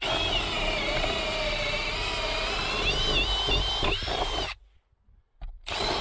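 Cordless drill boring a hole through a wooden board into the house wall, its motor whining steadily with the pitch wavering under load. It stops about four and a half seconds in, then starts again briefly near the end.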